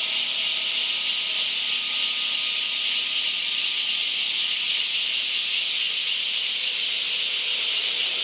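Takasago bear cicadas (Cryptotympana takasagona) singing in a dense chorus: a loud, steady, high-pitched buzzing hiss without a break.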